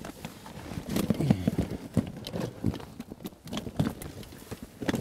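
Irregular knocks, slaps and rustles from a carp being weighed in a sling hung from a tripod-mounted digital scale.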